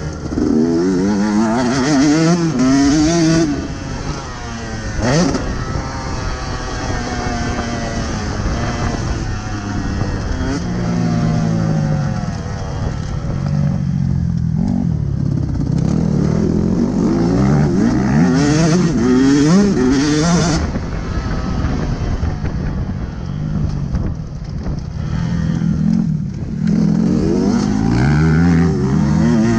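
KTM 150 SX two-stroke single-cylinder engine being ridden hard on a motocross track, its pitch climbing sharply and dropping back again and again as the throttle is opened and closed, with one fast rising rev about five seconds in.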